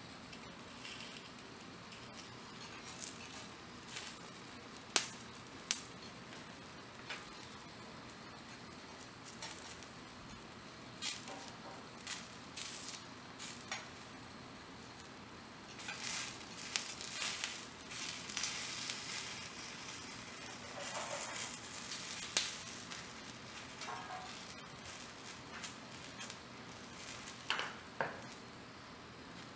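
Wagyu steak sizzling as it cooks, a steady crackling hiss with frequent spitting pops. A few sharp clicks stand out, the loudest about five seconds in.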